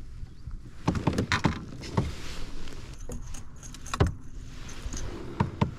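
Sharp clicks, knocks and a light metallic rattle of fishing tackle being handled aboard a kayak, likely while a lure snagged on the kayak's motor is worked free. The knocks come in clusters about a second in, at two seconds, at four seconds and near the end.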